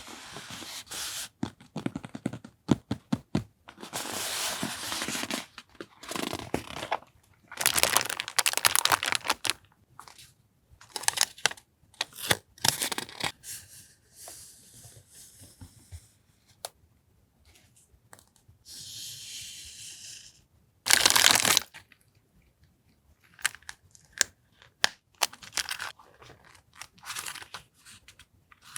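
Paper and packaging being handled, rustled and torn in stop-start bursts, with scattered light taps and clicks.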